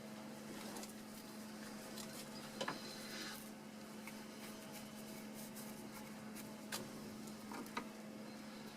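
Faint scraping of a hand tool working at a rusted broken nut, with a few short sharp metal clicks, about three across the stretch, over a steady low hum.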